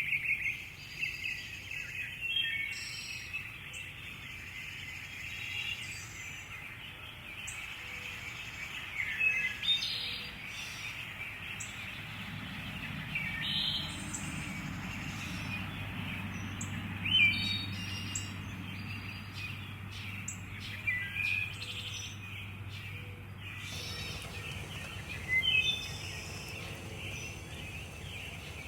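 Birds chirping, with short calls scattered throughout over a steady high hiss. A low hum comes in about twelve seconds in and stops about twenty-four seconds in.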